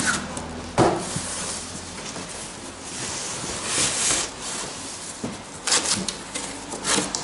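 Cardboard boxes sliding, scraping and bumping against each other as a boxed synthesizer is lifted out of its shipping carton: a sharp thump about a second in, then several scraping rubs of cardboard on cardboard.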